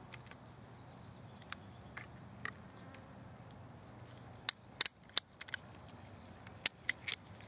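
Heritage Rough Rider single-action .22 revolver clicking as its cylinder retention pin is pushed home over a freshly fitted .22 Magnum cylinder and the action is handled. A few light clicks, then a quick cluster of sharp metal clicks in the second half.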